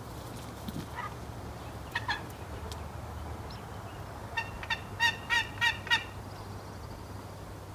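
Turkey yelping: a run of about six evenly spaced yelps, roughly three a second, starting about four and a half seconds in, after a couple of fainter single calls earlier.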